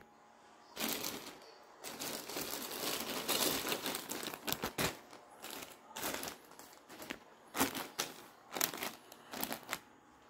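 Plastic mailer bag crinkling and rustling continuously as a packaged item is pulled out of it, followed by several short crinkles of a clear plastic bag being handled.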